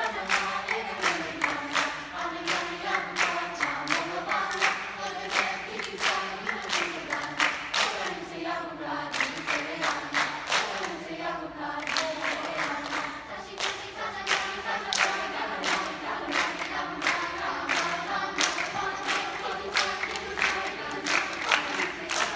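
Large mixed choir singing a lively song, accompanied by a steady rhythmic beat of sharp claps.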